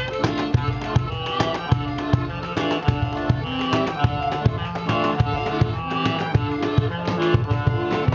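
Live band music: a tune played on melody instruments over a steady, busy drum rhythm.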